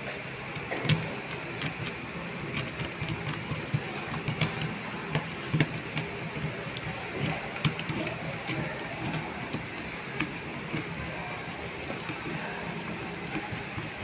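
Scattered light clicks and scrapes of a screwdriver and a copper wire at the terminal screws of a two-pole miniature circuit breaker, as the wire is seated and the screws tightened, over a steady background hum.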